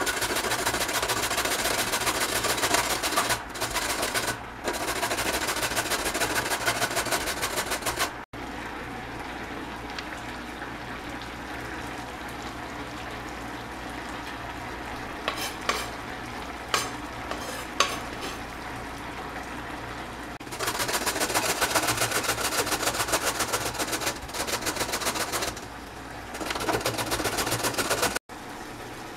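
Metal box grater rasping in fast, even strokes as a carrot and then a beetroot are grated, in two bursts. Between them is a quieter stretch with a few light scrapes and taps.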